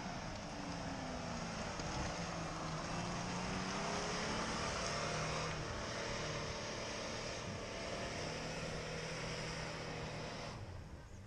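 Off-road vehicle's engine running under load, its pitch falling over the first couple of seconds and then holding fairly steady, over a broad rushing noise. The rushing noise cuts off abruptly about ten and a half seconds in.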